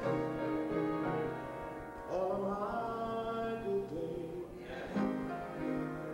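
A man singing a slow gospel song, holding long notes and sliding into new ones, with instrumental accompaniment.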